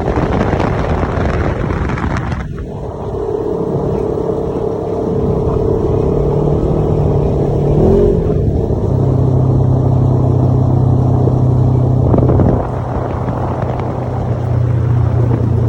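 Side-by-side UTV engine running under way, its pitch stepping up and down a few times as the speed changes, with a short rising glide about eight seconds in.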